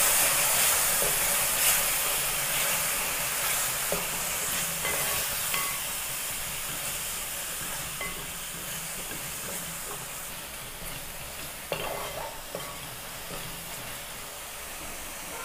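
Ground coconut masala paste sizzling in hot coconut oil in a pan as it is stirred and sautéed, with a few clicks of the spoon against the pan. The sizzle slowly dies down.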